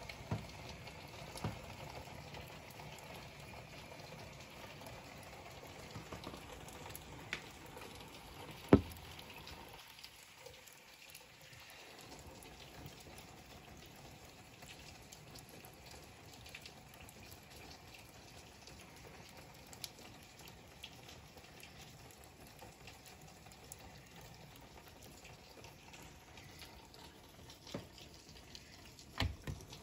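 Steady rain and running water heard from behind window glass, with scattered ticks of drops. One sharp tap stands out about nine seconds in.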